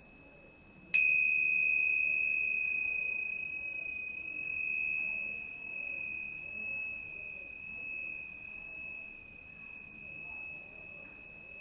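A high-pitched metal chime or bell, struck once about a second in, rings on one clear tone that slowly fades with a gentle waver. Its brighter overtones die away within a few seconds, and a faint ring of the same tone is already sounding before the strike.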